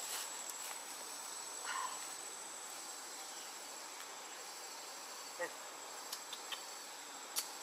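Steady high-pitched insect drone, with a few faint short chirps in the second half and a sharp click near the end.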